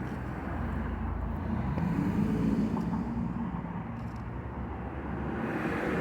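Road traffic: a car engine running as it passes, a steady low rumble that swells about two seconds in and then eases off.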